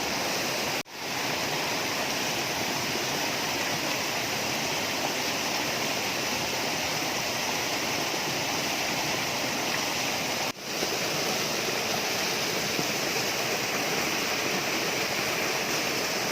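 Waterfall water rushing in a steady, dense roar of noise, broken twice by a momentary dropout, about a second in and about ten and a half seconds in.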